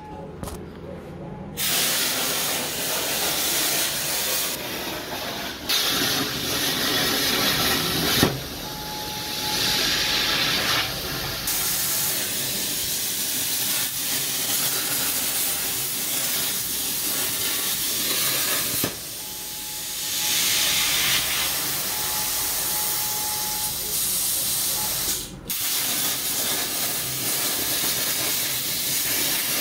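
FastCut Elite Series CNC plasma table's torch cutting metal plate: the arc fires about a second and a half in, then a loud, steady hiss of the plasma arc and its air, with brief drops where the arc pauses between cuts.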